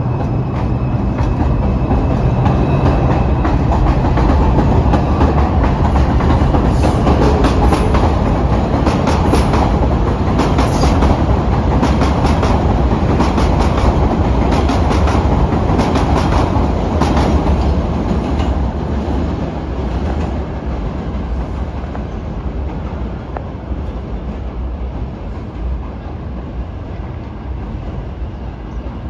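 New York City Subway (4) train running past, a loud steady rumble with wheels clicking over rail joints in a regular rhythm. The clicking fades about two-thirds of the way through, and the rumble dies down as the train moves away.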